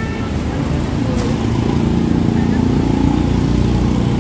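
Street traffic, motorbike engines among it: a steady low engine drone that grows louder about a second and a half in, as a vehicle passes close by.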